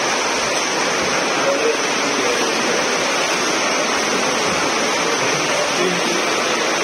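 Steady, loud splashing of several swimmers doing front crawl in an indoor pool, their arm strokes and kicks blending into one continuous wash of water noise.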